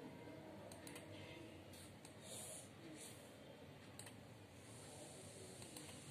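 A few faint, scattered single clicks of a computer mouse and keyboard over quiet room tone.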